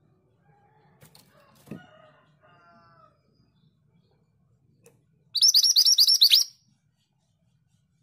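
Scarlet minivet giving a quick run of about ten high, sharp chirps lasting just over a second, past the middle. Earlier, fainter knocks and a soft lower call can be heard.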